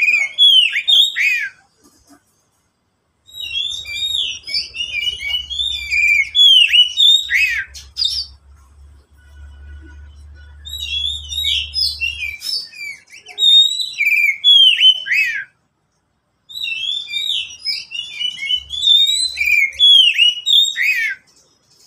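Oriental magpie-robin (kacer) singing: loud runs of varied, rapidly changing whistles and chirps, each lasting several seconds, with short pauses between them.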